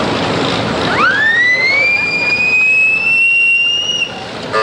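A high whistle-like tone sweeps sharply up in pitch about a second in, then holds, still creeping slowly higher, for about three seconds before stopping, over steady background noise. A short horn toot sounds at the very end.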